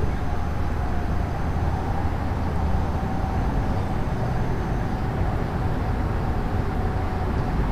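Steady low outdoor rumble, with a faint steady hum above it that fades out about five seconds in.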